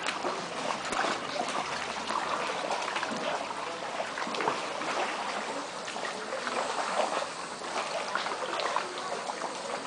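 Water splashing and trickling off paddle blades as an inflatable canoe is paddled along, a busy run of small irregular splashes with no steady rhythm.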